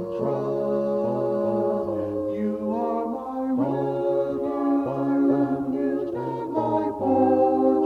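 Background music: a choir sings sustained chords over a low bass line, the chords changing about every second.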